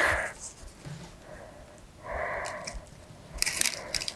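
Quiet handling of a ribbon: soft rustling, a short soft breathy noise about halfway through, and a cluster of brief crinkly scrapes near the end.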